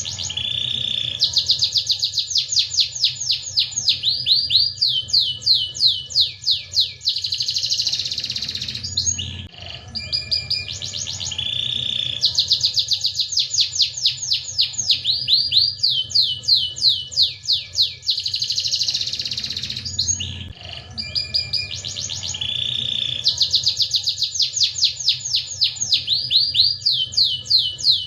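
Domestic canary singing a long song of rapid trills and rolls, the same phrase repeating about every eleven seconds. A faint low hum runs underneath.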